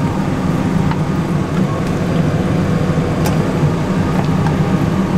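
Steady, loud, low mechanical drone of running kitchen machinery, with a few faint clicks.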